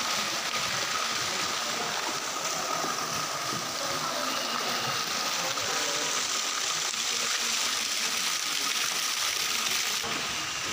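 Steady rushing hiss of running water from a garden water shower, with a faint steady tone above it.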